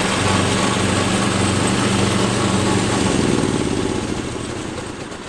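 Small petrol engine of a riding lawn mower running steadily, then faltering and dying away over the last two seconds: the mower has run out of petrol.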